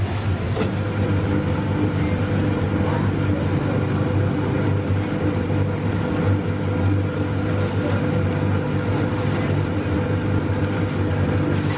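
Self-serve peanut butter grinding machine: a click just after the start, then its electric motor runs with a steady hum while it grinds peanuts into peanut butter.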